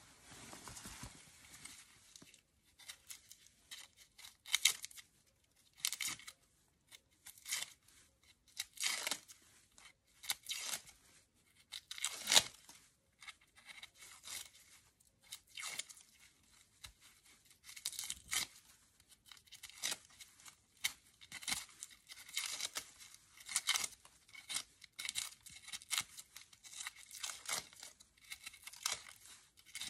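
Dry, papery outer skins and dead roots of an amaryllis bulb being torn and scraped away with a kitchen knife, a long run of short irregular rasps and crackles, with one sharper crack about twelve seconds in.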